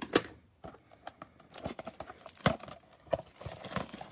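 Plastic shrink wrap crinkling and tearing as it is stripped off a cardboard trading-card blaster box, with several sharp knocks of the box being handled.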